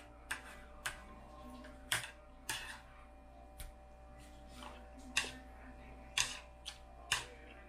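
Irregular clicks and taps of metal chopsticks and a fork against ceramic plates while cutting a fried egg and picking up noodles, with eating sounds between them, over a faint steady hum.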